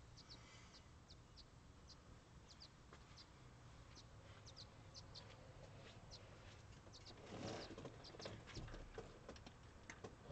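Faint birds chirping in short, scattered calls over quiet background hiss. A brief, louder noise swells up about seven and a half seconds in.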